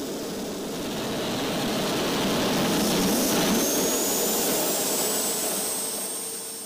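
Homemade Kamps-design model jet engine, a small gas turbine, running: a loud rushing noise with a high whine that slowly rises in pitch.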